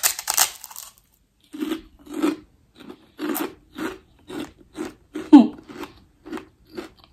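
A large pork rind bitten with a burst of loud, crisp crunching for about a second, then chewed with open crunches about twice a second, close to the microphone. About five seconds in there is a brief sliding, voice-like sound, the loudest moment.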